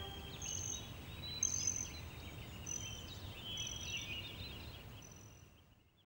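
Birds calling over a low steady background noise: short high whistles repeated about once a second with scattered chirps between, fading out near the end.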